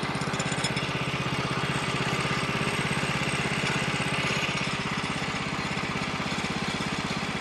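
Small engine of a portable bandsaw sawmill running steadily at idle, with a fast even beat.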